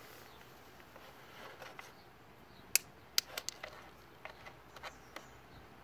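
Several sharp clicks and light knocks starting about halfway in, a hand handling hard parts around a motorcycle's frame and air box; the first click is the loudest, followed by a quick run of three or four and then a few softer ones.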